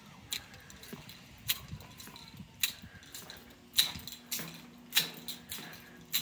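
Footsteps on a brick floor in an arched masonry tunnel, with sharp clicking strikes about once a second and fainter ones between.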